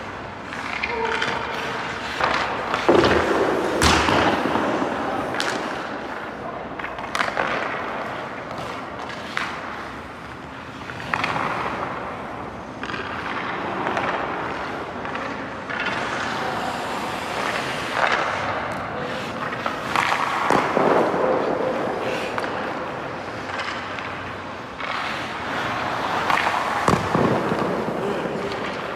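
Hockey skate blades scraping and carving on rink ice as a goalie moves about the crease, broken now and then by sharp knocks and thuds of pads, stick or puck.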